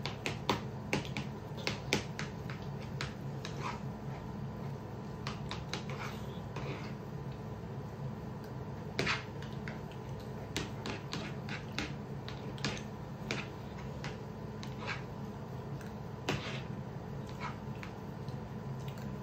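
People eating rice by hand from plates: irregular small clicks and smacks of chewing, fingers and utensils against the plates, over a steady hum.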